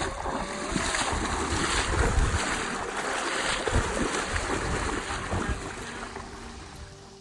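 Legs wading through shin-deep river water, splashing with each stride, with wind buffeting the microphone. The sound fades out near the end.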